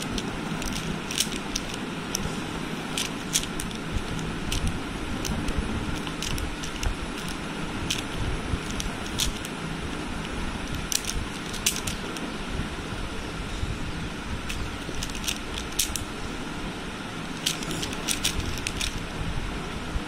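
Stickerless 4x4 speed cube being turned quickly by hand: a string of irregular sharp plastic clicks and clacks as the layers snap round, during the 3x3 stage of the solve.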